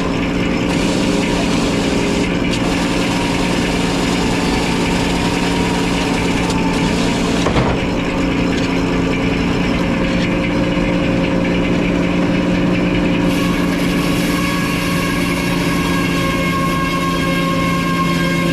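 Sawmill's engine running steadily at a constant speed, with one brief knock about seven seconds in.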